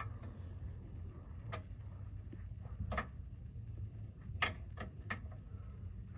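A handful of separate sharp clicks and clinks from tools and metal parts being handled during motorcycle disassembly, the loudest a little past the middle, over a low steady rumble.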